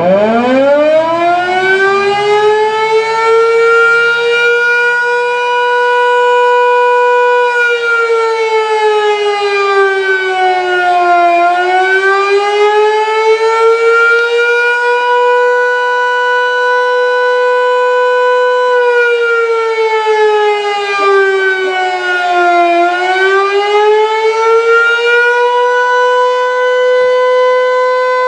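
A 12-port Federal Electric Fedelcode Model 5 rotating siren winding up from a low growl to a steady high tone within about four seconds, then wailing: its pitch sags and climbs back twice, about eleven seconds apart.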